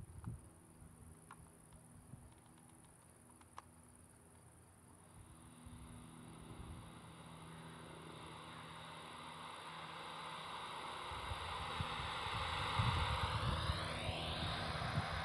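Live electronic sound performance: a noisy drone swells steadily louder from about five seconds in, with tones sweeping in pitch near the end. A few faint clicks sound in the first few seconds.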